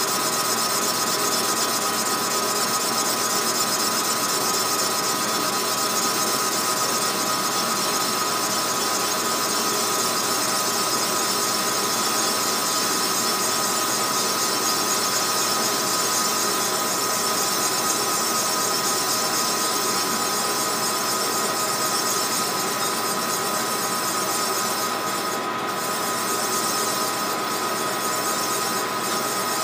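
Metal lathe running steadily with a constant high whine, its tool cutting an aftermarket Stihl MS 660 chainsaw cylinder.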